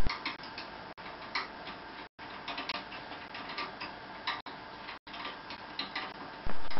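Faint, irregular light clicks and taps of metal parts being handled as a petrol tank is fitted onto a moped frame.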